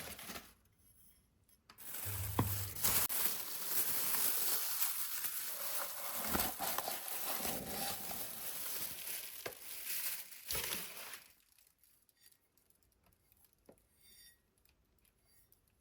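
Crinkling and rustling handling noise starting about two seconds in and lasting about nine seconds, with a few sharp clicks and light clinks; after it stops only faint ticks remain.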